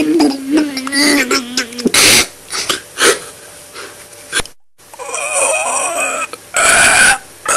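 A man's voice making exaggerated comic straining noises, mimicking constipation. It opens with a long held groan, followed by loud, forceful hissing grunts and wavering moans. The sound cuts out very briefly a little past the middle.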